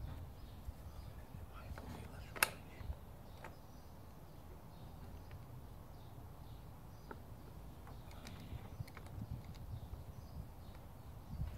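A few scattered sharp clicks and knocks as the pipe and valve fittings of a homemade water ram pump are handled, the loudest about two and a half seconds in, over a faint low rumble.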